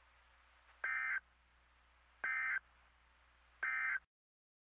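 Three short bursts of buzzy digital data tone, each about a third of a second long and about a second and a half apart: the Emergency Alert System SAME end-of-message code that closes an alert broadcast.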